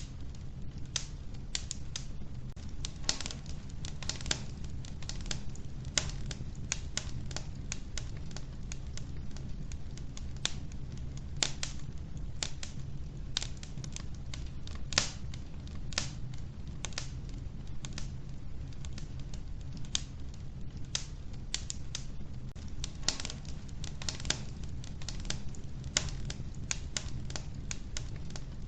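Wood fire burning in a wood-burning stove, logs crackling with frequent irregular sharp snaps over a steady low hum.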